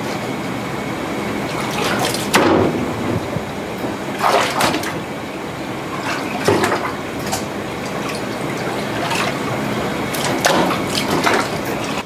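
Water running steadily, with a few short knocks and clatters about two seconds apart.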